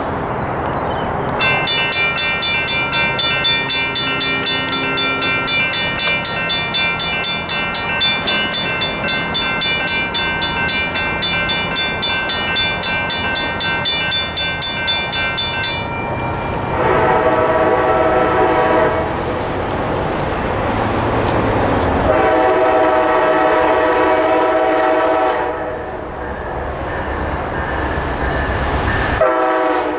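Railroad crossing bells ringing rapidly as the signals activate, about three strikes a second, stopping about halfway through. Then the approaching train's lead locomotive, a Siemens ALC-42, sounds its horn for the crossing: two long blasts, and a third starting near the end.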